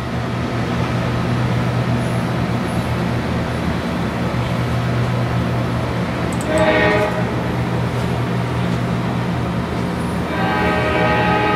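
CSX diesel freight locomotives passing at speed, their engines running with a steady low rumble. The locomotive's air horn sounds a short blast about halfway through and a longer one starting near the end, the warning for the grade crossing.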